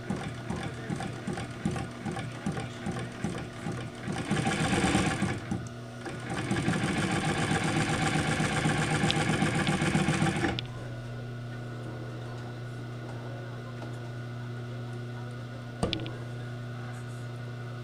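Singer 111W153 compound walking-foot industrial sewing machine stitching through fabric under a touchy clutch motor. It goes in slow, stop-start stitches at first, then runs fast and steady from about six seconds in until it stops abruptly about ten and a half seconds in. After that a steady hum from the clutch motor carries on, with a single sharp click near the end.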